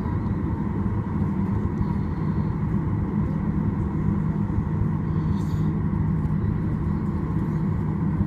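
Steady cabin drone of a Boeing 737's jet engines at low taxi power, a constant low hum with a fainter whine above it.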